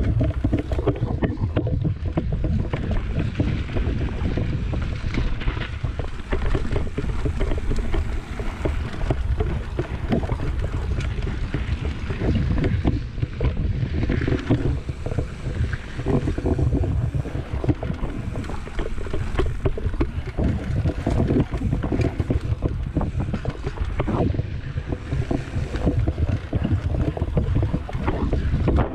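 Mountain bike riding fast down a dirt singletrack: wind buffeting the camera's microphone over tyre noise, with constant rattling and knocks from the bike on the rough trail.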